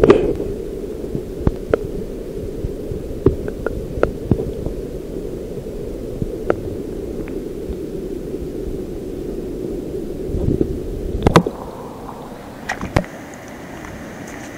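Muffled underwater wash of a tide pool, heard through a GoPro's waterproof housing, with scattered sharp clicks and ticks. About eleven seconds in comes a loud splashing knock as the camera leaves the water, and after it the sound is a lighter, airier hiss.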